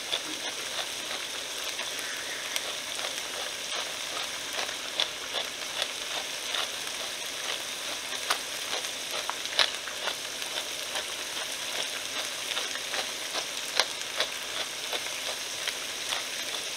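Sliced bell peppers and onions sizzling in olive oil in a frying pan over medium heat: a steady hiss with frequent sharp crackles.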